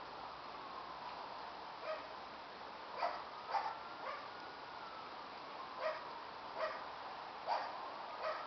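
A young husky giving short, sharp yips, about eight of them at uneven intervals.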